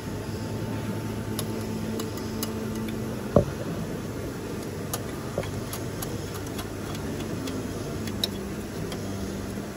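Steady low hum with scattered light ticks and a few knocks from hand work on a car's exhaust downpipe under the bonnet; the loudest is one sharp knock about three and a half seconds in.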